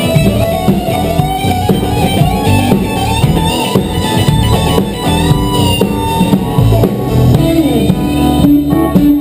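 Live rock band playing loudly, with an electric guitar lead line that slides and bends in pitch over the band.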